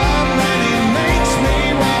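Live rock band playing: strummed acoustic guitar over electric bass and a drum kit, with a steady kick-drum beat about two to three times a second.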